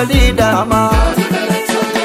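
Song with a melodic line over deep kick drums; the bass and kick drop out about a second in.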